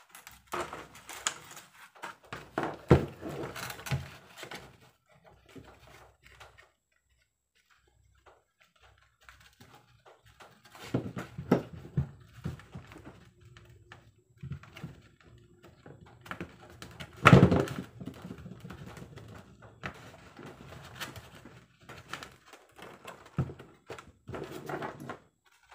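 Irregular knocks, clicks and rustling from handling a plastic bicycle helmet and a camera strap mount on a tabletop, with two louder thunks, one about 3 seconds in and one about 17 seconds in.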